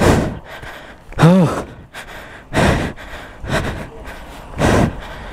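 A person breathing hard and gasping, with loud breaths about once a second and one voiced gasp about a second in.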